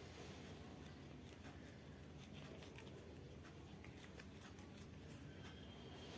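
Faint crinkles and small clicks from a plastic sauce packet being handled and emptied onto noodles, over quiet room tone.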